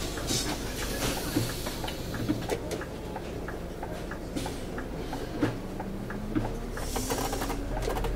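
Cab of a Scania City Wide bus with the engine running low, under many small irregular clicks and rattles and a few short hisses. Near the end the engine note rises as the bus pulls away.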